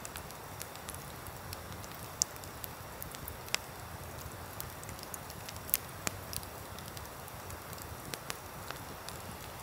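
Wood campfire burning, with irregular sharp pops and crackles from the logs over a steady hiss.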